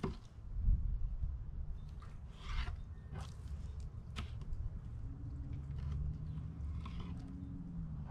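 Fillet knife slicing and scraping through a sheepshead fillet on a cleaning table: short crunchy scrapes and a few sharp clicks, over a low steady rumble, with a faint low hum starting about halfway through.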